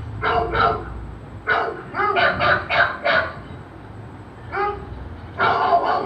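Dog barking in short, separate barks: two at the start, a quick run of several about two to three seconds in, a single bark later, and more barking near the end.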